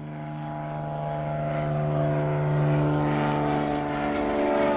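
Radio-control model airplane's motor and propeller running steadily, fading in from silence and growing louder over the first two seconds.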